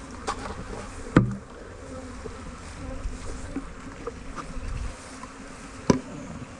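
Honeybees buzzing steadily in the air around an opened hive, from a colony that has been shaken out. Two sharp knocks cut through the buzz, about a second in and near the end.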